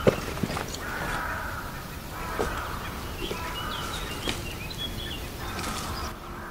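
Outdoor birds calling: harsh calls of about half a second, repeating every second or so, with short higher chirps between them. A few sharp clicks and knocks over the top, the loudest right at the start.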